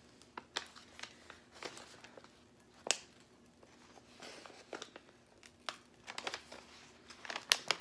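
Protective cover sheet crinkling and crackling as it is peeled back from the sticky adhesive surface of a diamond-painting canvas. The crackles are scattered, with a sharper snap about three seconds in and a quicker run of crackles near the end.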